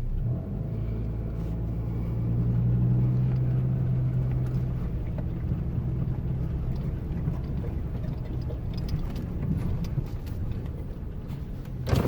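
A vehicle driving along, its engine and road noise making a steady low hum that swells a little a couple of seconds in.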